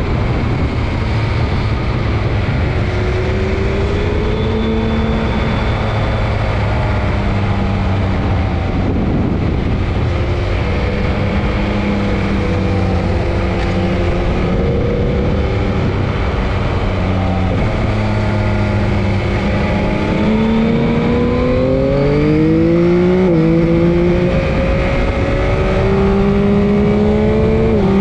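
Onboard sound of a sport motorcycle at track speed: its engine note under heavy wind rush. In the last third the engine revs climb hard under acceleration, with the pitch dropping sharply at two upshifts.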